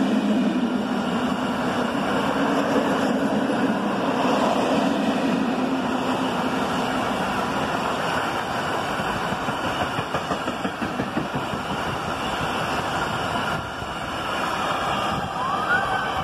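Freight train of tank wagons passing close at speed: a steady rumble and rattle of steel wheels on the rails. Partway through comes a run of even, rhythmic pounding, the beat of a wagon wheel worn with a flat spot. Near the end there is a short rising squeal.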